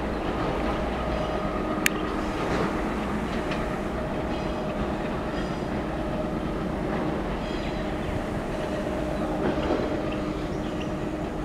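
Passenger coaches of an Indian Railways express running away over the rails, a steady rumble of wheels on track with a faint steady hum. There is one sharp click about two seconds in, and the sound eases slightly near the end as the train recedes.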